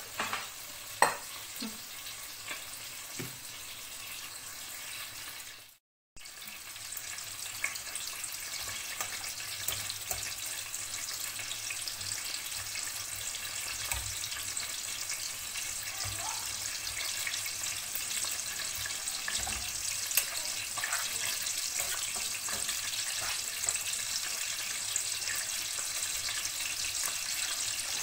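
Minced meat frying in sunflower oil in a pan: a steady high sizzle, with a few light knocks in the first few seconds. The sound drops out for a moment just before six seconds in, then the sizzle goes on.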